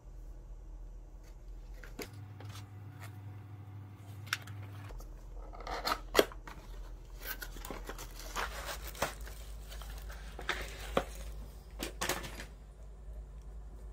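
Unboxing: a cardboard product box and its plastic wrapping being handled and opened, with crinkling, rustling and tearing plus scattered clicks and taps, busiest in the second half.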